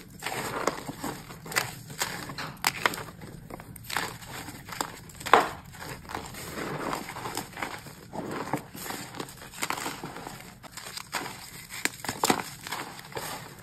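Reformed gym chalk being crushed and crumbled by hand in loose chalk powder: soft, irregular crunching and crackling, with a sharper crunch about five seconds in and another near the end.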